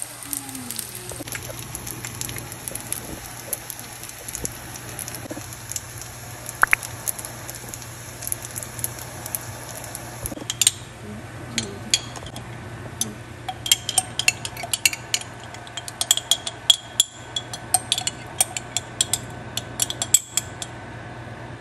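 Spaghetti and shrimp sizzling steadily in a frying pan. About halfway through, a rapid series of sharp clinks and scrapes begins as a utensil works pesto into the pasta against the pan.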